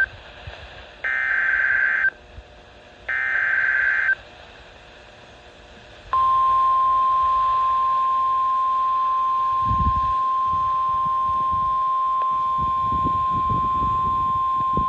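NOAA Weather Radio Emergency Alert System alert. The tail of one raspy digital SAME header burst is followed by two more, each about a second long and a second apart. Then the steady 1050 Hz warning alarm tone sounds for about nine seconds, the signal that a warning such as this severe thunderstorm warning follows.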